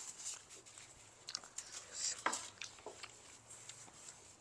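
Faint eating sounds: scattered light clicks of chopsticks against foil and dishes as noodles are picked up, with soft chewing.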